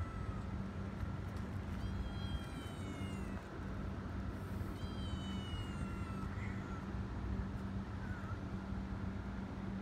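Calico kitten meowing: two long, high meows that slide downward, about three seconds apart, over a steady low hum.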